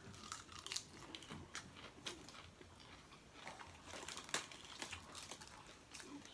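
Quiet crunching and chewing of a raw iceberg lettuce leaf, with short crackles as leaves are torn off the head of lettuce.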